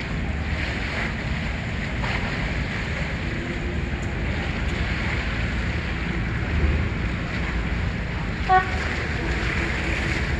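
Wind and choppy water over the steady low rumble of a boat engine. Near the end, one short pitched call cuts through.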